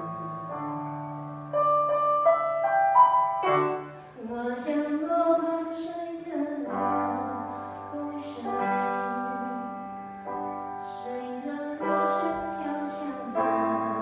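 Yamaha electronic keyboard playing a slow song, with held chords over long bass notes that change every second or two. A woman sings along to her own accompaniment.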